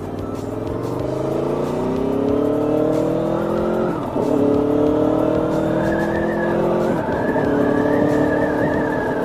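Aprilia Tuono V4 1100 Factory's V4 engine pulling under acceleration, its note climbing steadily. Two quick dips in pitch, about four and seven seconds in, mark upshifts, and the revs then run on near steady.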